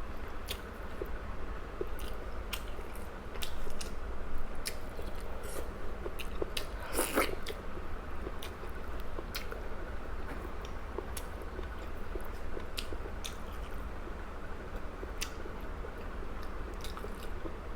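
Chewing and biting food with wet mouth clicks, over a steady low hum, with one louder mouth noise about seven seconds in.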